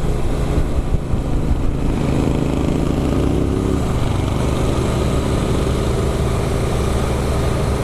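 Motorcycle engine running, rising and dipping a few times in the first two seconds, then steady.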